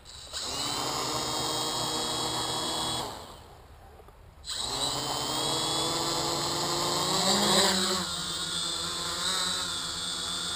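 Quadcopter's electric motors and propellers spinning with a steady whir. They cut out after about three seconds and start again about a second and a half later, then rise in pitch about two-thirds of the way through as the throttle comes up and the quadcopter lifts off.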